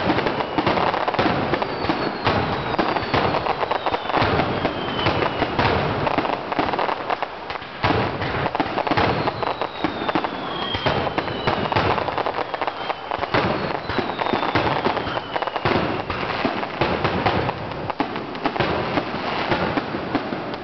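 Aerial fireworks in a dense, continuous barrage: many shell bursts and crackling overlapping with no break, and several whistles falling in pitch.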